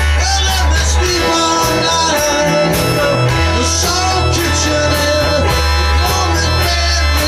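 Blues-rock song playing: guitar, bass and drums with a bending melody line over them, steady and loud throughout.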